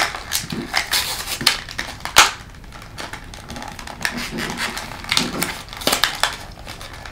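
Small cardboard blind box being pried and torn open by hand, its stiff flap resisting: irregular cardboard clicks, crackles and tearing.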